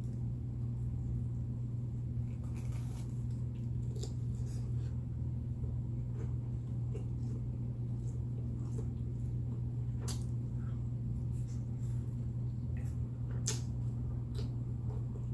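Steady low hum under scattered small clicks and smacks of eating and handling food.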